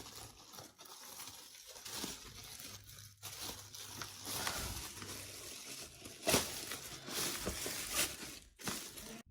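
Packaging being handled and pulled apart: irregular crinkling and tearing rustles, with a few louder rustles in the last three seconds.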